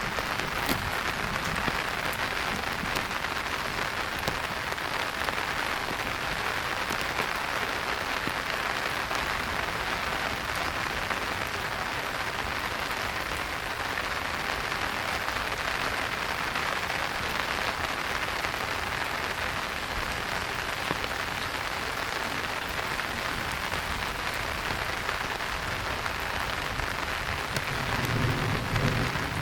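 Steady rain falling on a street, heard as an even hiss with scattered sharp drop ticks. A low rumble swells in near the end.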